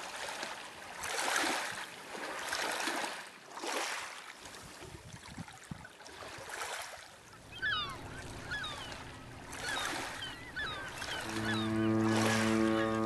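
Gulls calling, a run of short squawks in the second half, over the rushing wash of sea water coming and going in swells. Music comes in near the end.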